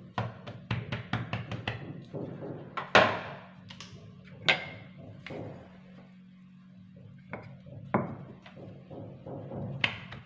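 Hands patting and pressing a ball of dough on a floured stone countertop in a quick run of taps. A rolling pin then knocks down on the counter and rolls the dough, with a few scattered knocks. A steady low hum sits underneath.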